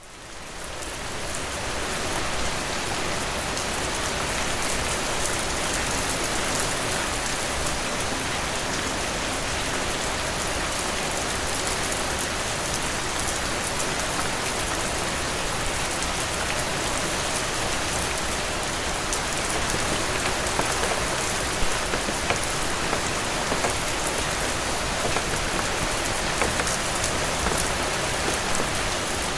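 Steady rain falling, fading in over the first couple of seconds, with many small sharp ticks and pops scattered through the hiss, a few louder ones in the second half.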